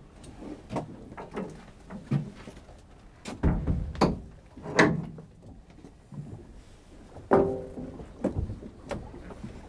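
Footsteps, knocks and door thuds as two people step over a threshold into a small boat cabin: about a dozen separate knocks, the heaviest thud about three and a half seconds in.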